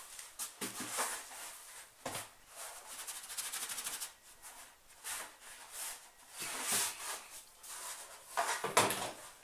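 Dry ground-bread meal being poured and shaken out of a plastic container into a plastic bin: a dry rustling hiss broken by knocks as the container is tapped, the loudest knocks about two seconds in and near the end.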